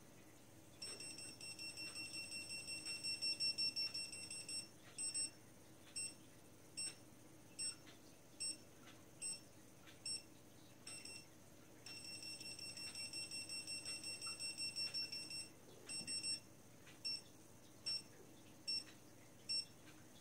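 Dogtrace D-fence 1001 electronic dog-fence collar receiver beeping. It gives a rapid run of high beeps, about five a second, which is its warning-zone signal. Then it gives slower single beeps a little under a second apart, its correction-zone signal, sounded together with correction pulses. The fast-then-slow pattern happens twice, and the fast beeping starts again at the very end.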